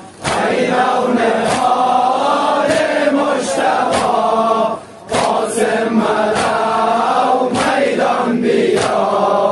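Male voices chanting a Persian Muharram lament (noha) in a group, in two sung phrases with a short breath pause between them, over a steady beat.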